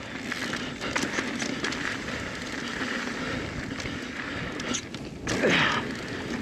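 Mountain bike rolling over a dirt trail: tyres running on dirt with the bike's frame and drivetrain rattling and clicking. About five and a half seconds in there is a brief louder swell with a falling whine.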